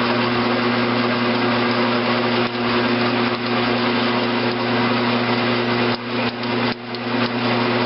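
Grizzly G9972Z bench lathe running steadily with a constant motor and gearbox hum, as a twist drill in the tailstock drill chuck bores the centre hole for a valve stem into the turning metal stock. A few brief dips in the noise come near the end.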